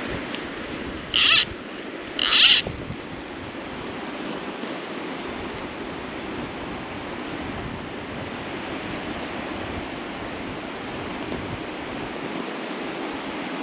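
Steady rush of flowing water from a spate river, with two short, loud hissing sounds about one and two seconds in.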